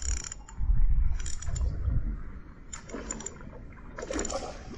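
Ryobi 800 spinning reel clicking and whirring in about four short bursts, a second or so apart, as a hooked barramundi is played on light tackle, over a low wind rumble on the microphone.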